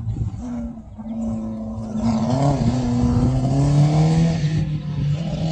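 Engine of a VW Beetle autocross car running hard through the cones. Its pitch holds steady at first, then shifts and rises as it gets louder about two seconds in.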